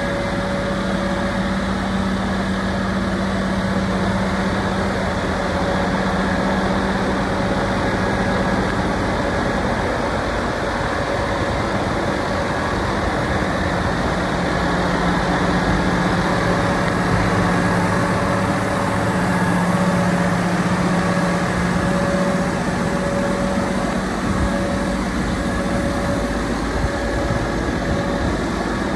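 Scania R400 8x4 tipper's six-cylinder diesel engine idling steadily, a low hum with a held tone that fades and comes back a couple of times.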